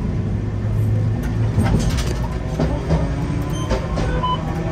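Streetcar heard from its cab as it runs: a steady low hum with scattered clicks and rattles, and a few brief high tones partway through.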